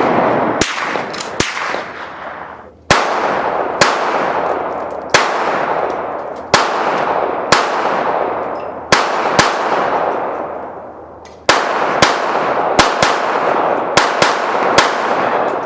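Gunfire on a shooting range: sharp shots at irregular spacing, sometimes two or three close together and sometimes a couple of seconds apart. Each report rings on in a long echo that fades over one to two seconds.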